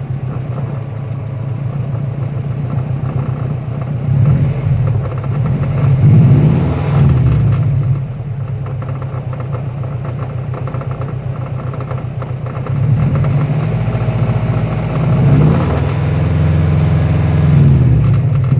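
Car engine just after starting, running with a steady rhythmic knock or rattle and revved up several times. The owner can't say whether it is rod knock or a failing timing chain tensioner.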